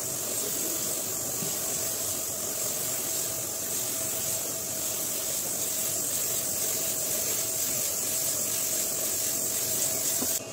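Compressed-air spray gun hissing steadily as it sprays wood polish onto a carved wooden door, with a steady hum underneath. The hiss cuts off suddenly near the end.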